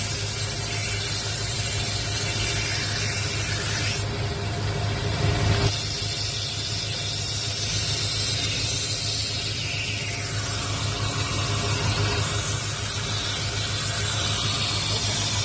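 Electric knife-sharpening grinder: a steady motor hum under a loud hiss of a blade held against the wheel. The hiss stops for about a second and a half about four seconds in, then starts again.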